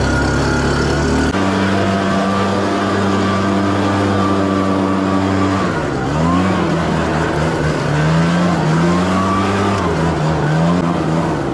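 Small gasoline engine running steadily, stepping up to a higher speed about a second in. In the second half its speed repeatedly sags and recovers, as if throttled or loaded and unloaded.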